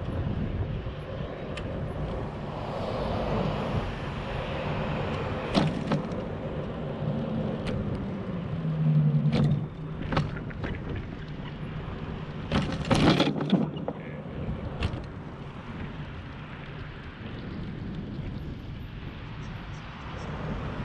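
Steady wind and tyre noise on a bicycle-mounted camera riding a bike path, with car traffic passing on the road alongside. A few sharp knocks and rattles stand out, the loudest cluster about 13 seconds in.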